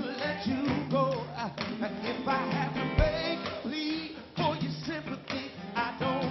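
Live band playing an upbeat Motown soul song, a male lead vocalist singing over drums and backing voices. A loud low thump about halfway through.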